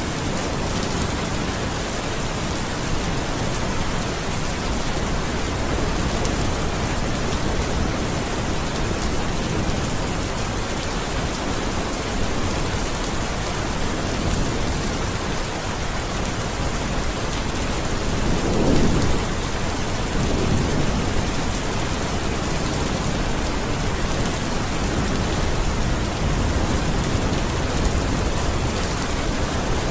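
Steady heavy rain falling, with a low rumble of thunder about two-thirds of the way through, followed by a weaker second rumble.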